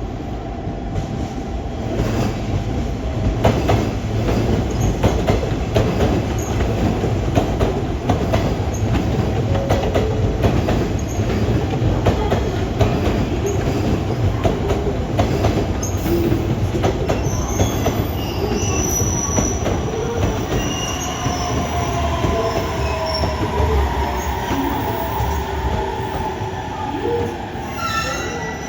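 JR Kyushu 817-series electric train rolling into the station platform: a steady low rumble with repeated wheel clicks over the rail joints. In the second half high tones slide slowly down in pitch as the train brakes and slows.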